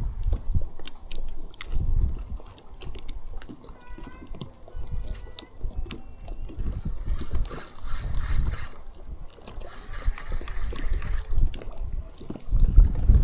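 Sea water sloshing and washing at the shoreline, with gusts of wind rumbling on the microphone. Two longer hissing washes of water come about seven and ten seconds in, and there are scattered small clicks.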